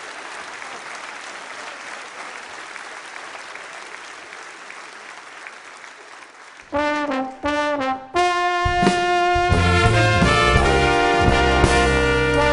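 Audience applause dying away, then about seven seconds in a small brass band of trumpet, trombone, French horn and tuba cuts in with two short punched chords and launches into the song's introduction with drums.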